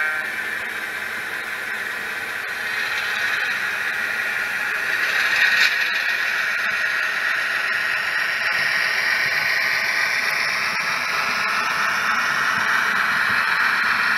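HO scale PRR C-Liner model locomotive and its freight cars running along the track, a steady hissing run noise. It grows louder as the locomotive nears, about five to six seconds in, and stays up as the cars roll by.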